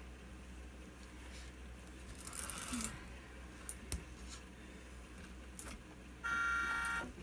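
Light plastic rustling and a few small clicks as a plastic ride-on toy car is handled. About six seconds in, the toy steering wheel gives a steady electronic beep lasting about a second.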